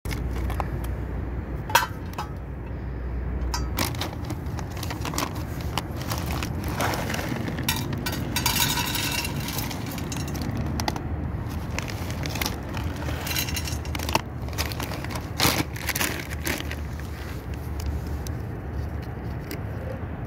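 Dry cat kibble poured from a bag, rattling into a stainless steel plate about halfway through, among scattered clicks, scrapes and rustles of the metal dish, plastic tub and food bag being handled. A steady low rumble runs underneath.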